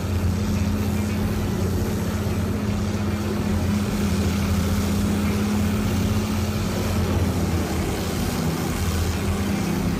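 Large industrial wood grinder running steadily: its diesel engine holds a steady low drone, with a broad noise of the machine working over it.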